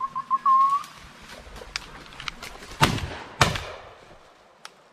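Two shotgun shots about half a second apart, each loud and sharp with a ringing tail, fired at a flushed woodcock. They follow a short whistled run of high pips that ends in a longer note.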